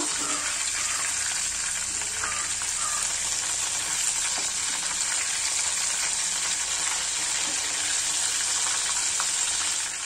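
Oats-coated prawns deep-frying in hot oil, a steady sizzle, while a metal slotted spoon turns them over in the pot.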